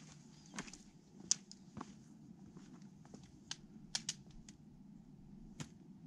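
Faint, irregular clicks and scuffs of boots and trekking-pole tips on a rocky mountain trail, scattered a few at a time over a low steady hum.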